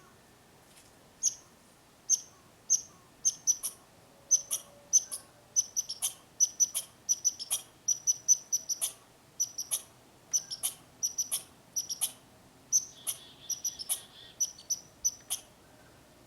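A squirrel in a tree calling with short, sharp, high chirps: single calls about a second apart at first, then quick runs of two to four, stopping shortly before the end.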